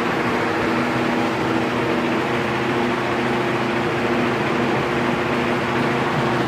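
Electric arc welding on a steel leaf spring: a steady crackling hiss with a low hum underneath.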